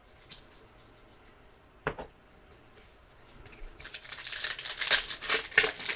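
Trading card packs being handled and opened: rapid crinkling and rustling of foil wrappers and cards, starting about three and a half seconds in and growing louder. Before that it is mostly quiet, with a short sharp tap about two seconds in.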